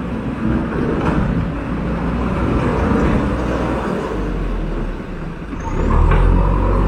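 A motor vehicle's engine running with a steady low rumble, growing louder about six seconds in.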